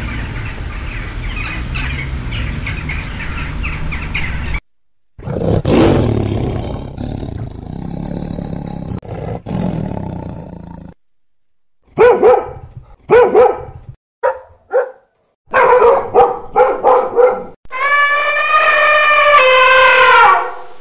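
A run of separate animal calls cut one after another. Tigers roar and growl in the middle, and a quick string of short, loud barking calls follows. Near the end an elephant trumpets in one long call that dips slightly in pitch before cutting off.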